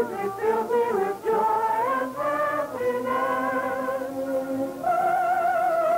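Music with wordless singing: sustained notes with a wavering vibrato that step to new pitches every second or so.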